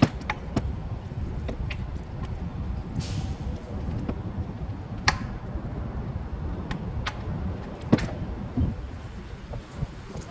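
Scattered sharp clicks and knocks of metal engine parts and hand tools being handled, over a steady low rumble. A brief hiss about three seconds in.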